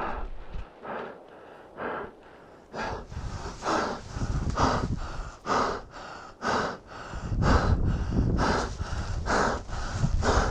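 A skier panting heavily and raggedly just after being swept down by an avalanche, about one hard breath a second, getting louder after the first few seconds.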